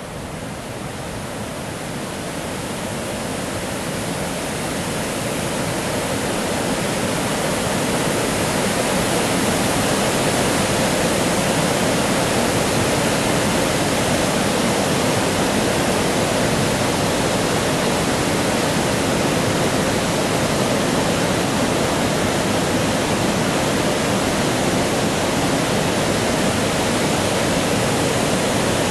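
Creek water spilling over a low dam, a steady rushing sound. It grows louder over the first several seconds, then holds steady.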